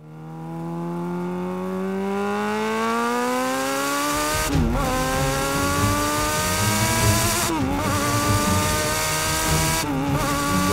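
Kawasaki Ninja motorcycle engine in a mid-engine Rover Mini accelerating hard, its pitch climbing steadily. The climb is broken by three quick upshifts, about four and a half, seven and a half and ten seconds in. Road and wind noise join about four seconds in.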